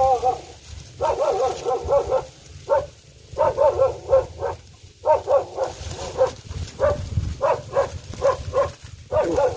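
A dog barking repeatedly in runs of short barks, with a wavering whine at the start.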